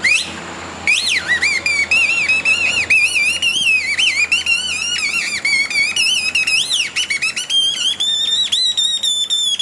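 Kathputli puppeteer's mouth reed whistle (boli) voicing the marionettes: a shrill, warbling whistle whose pitch wobbles rapidly up and down. It breaks off for under a second at the start, then runs on, climbing higher near the end.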